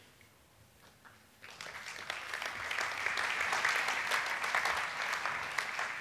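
Audience applauding. It starts about a second and a half in, holds steady, and dies away near the end.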